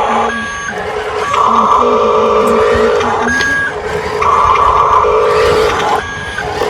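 Electronic engine and beep sound effects from a toy RC construction vehicle's sound module: a steady buzzing tone held for about a second and a half, broken by a short higher beep, in a cycle that repeats about every three seconds.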